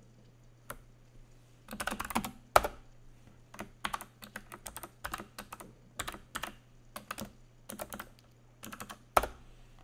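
Computer keyboard typing in short bursts of sharp keystrokes, with two harder key strikes, one a few seconds in and one near the end. A faint steady low hum runs underneath.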